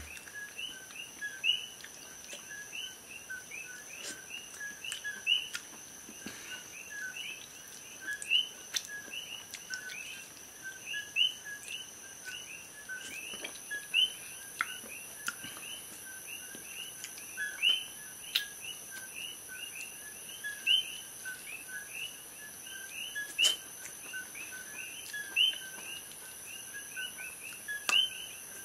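A chorus of coqui frogs calling, many overlapping two-note chirps (a lower note then a higher rising one) several times a second, over a steady high insect hum, with a few faint clicks.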